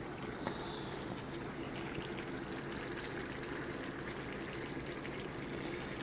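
Fried white corn simmering in a pot: a steady bubbling of many small pops and gurgles, over a steady low hum.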